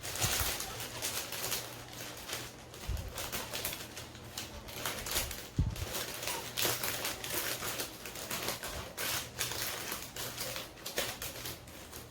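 Scissors snipping through red craft paper, with the paper rustling and crinkling as it is handled, in irregular short strokes and a few soft knocks.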